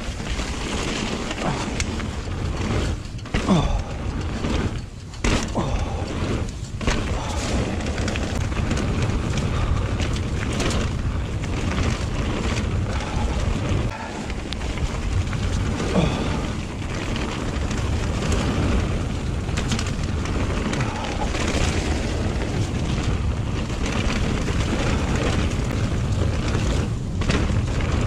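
Mountain bike riding noise picked up by a chest-mounted action camera: a steady rush of wind on the microphone and tyre roar on a wet trail, with a few sharp knocks and rattles from the bike in the first several seconds.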